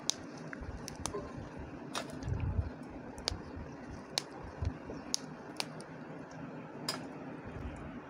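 Fresh green chillies snapped into pieces by hand over a stone mortar: scattered sharp little snaps at an uneven pace, with a few soft low thumps.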